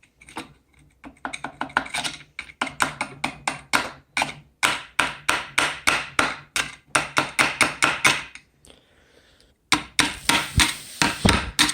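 Rapid series of sharp clicks and taps from hand tools working at a stuck part on a small go-kart engine, several a second. The tapping stops for about a second and a half near the end, then starts again.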